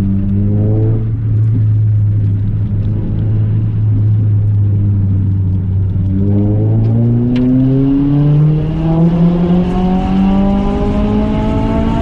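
Renault Clio 3 RS 197's 2.0-litre four-cylinder engine heard from inside the cabin. About a second in the revs drop and hold low and steady. From about halfway they climb steadily under acceleration.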